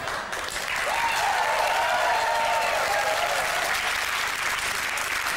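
Studio audience applauding steadily. About a second in, a single long held note rises above the clapping for a couple of seconds.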